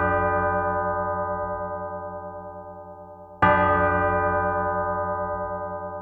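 A single large church bell tolled close up, struck at a steady pace about every four seconds. The long ringing of the previous stroke dies away slowly with a wavering low hum, and a fresh stroke lands a little past halfway through.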